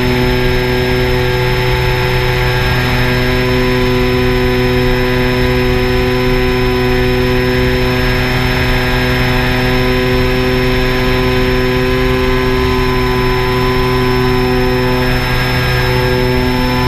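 Electric motors and propellers of a small radio-controlled aircraft running at steady speed, a loud, even whine with a constant high tone.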